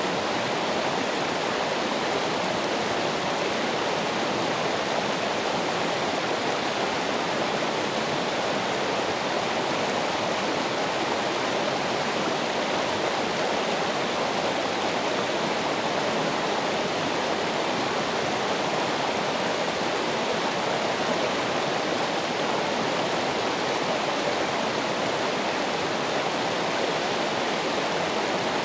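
Running water flowing steadily, an even rushing sound with no change in level.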